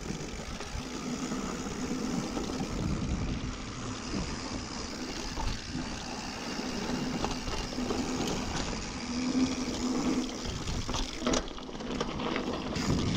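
Mountain bike rolling down a dirt trail: a steady rush of tyre and wind noise on the camera microphone, with a couple of sharp rattles near the end.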